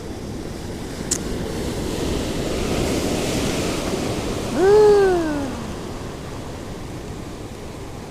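Sea waves washing onto the shore, swelling and then easing off. A man's brief drawn-out vocal sound, falling in pitch, cuts in near the middle. There is a short click about a second in.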